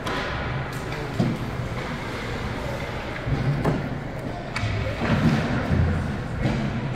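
Scattered knocks and thuds from a youth hockey game, sticks, puck and players hitting the boards, with a heavier run of low thuds a couple of seconds from the end.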